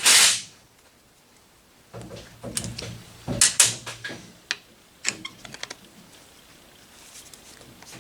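Scattered sharp metallic clicks and knocks of hand tools working on an engine, with a quick run of clicks about five seconds in, over low shop background noise.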